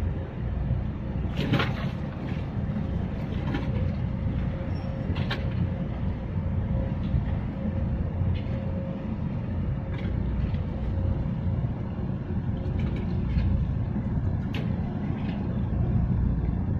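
Steady low engine rumble of harbour vessels, with a faint steady hum and a few light knocks.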